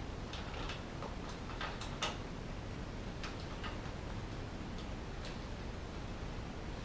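Scattered light clicks and taps of metal parts being handled as a bicycle saddle and seat post are fitted into the frame, at irregular spacing, with one sharper click about two seconds in.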